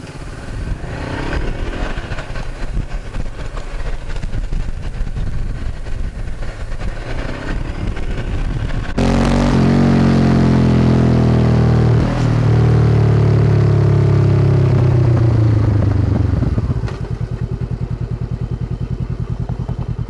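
2013 Honda CB500X parallel-twin engine with a Staintune exhaust, ridden along and then slowing: its pitch falls away after about nine seconds, with a short break around twelve seconds, and it settles to a steady, evenly pulsing idle near the end.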